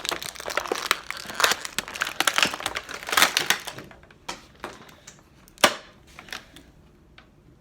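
Stiff plastic action-figure packaging crinkling and crackling as the figure is worked out of its box. The handling thins to scattered clicks after about four seconds, with one sharp snap midway through that pause.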